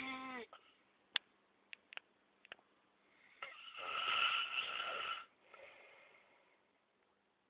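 A sleeping man snoring. The pitched tail of one snore ends just as it begins, a few faint clicks follow, and about three and a half seconds in comes one loud snore lasting nearly two seconds, which fades into a softer breath out.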